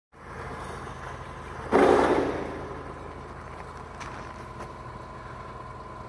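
Diesel engine of a tracked logging machine running steadily, with a steady whine over it. About two seconds in, a sudden louder rush of noise fades away over about a second.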